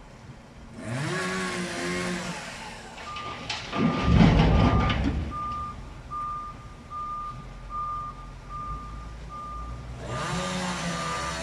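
Truck reverse alarm beeping steadily, about two beeps a second, over a diesel engine that revs up twice. A loud rush of noise comes about four seconds in.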